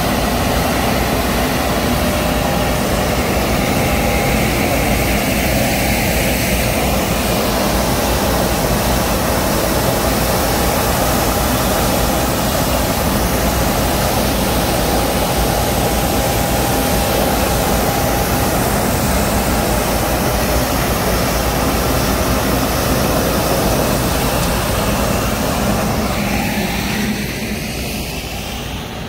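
Truck-mounted road sweeper at work: a steady, loud mechanical drone from the engine and suction fan, with a faint steady whine, as the rotating gutter brush sweeps a layer of dirt off paving. The sound eases off a little near the end.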